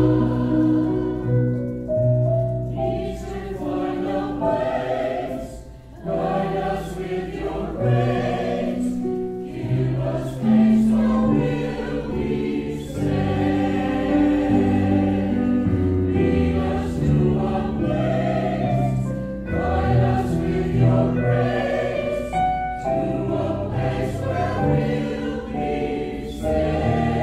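Mixed choir of women and men singing a sacred song in parts, accompanied by an electric keyboard, with a brief break between phrases about six seconds in.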